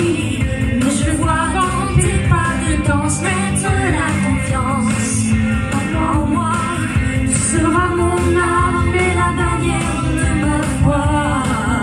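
A male singer performing a pop song into a handheld microphone over loud amplified accompaniment, his voice wavering on long held notes in the second half.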